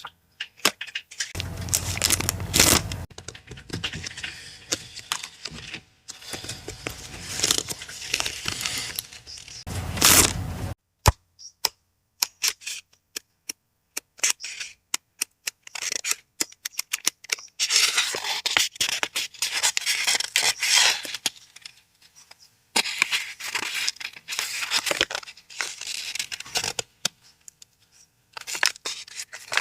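Paper being handled, torn and rustled in several stretches of a few seconds each, with a run of sharp separate clicks in between.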